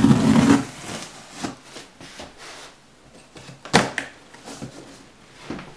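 A cardboard shipping box being opened and its packing material handled. A loud scraping rustle comes at the start, then scattered rustles and light knocks, with one sharp knock a little before four seconds in.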